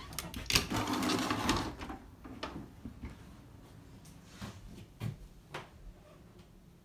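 A door being pushed open with a scraping rattle lasting about a second and a half, then a few light knocks and steps.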